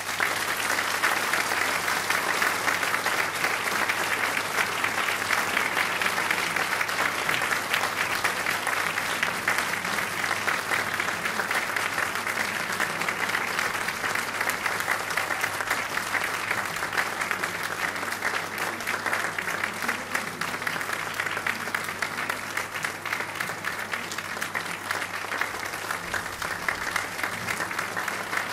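Audience applause breaking out suddenly as a piece ends, then continuing steadily as a dense clapping.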